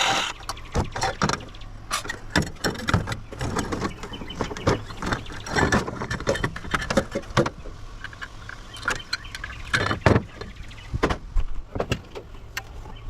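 Irregular clinks, knocks and rattles of metal parts being handled while a coffee maker is taken apart by hand.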